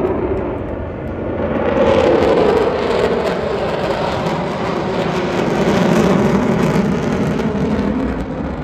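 Jet engine noise from a formation of military jets flying past overhead. It swells about two seconds in, and its pitch slowly sinks as the jets go by.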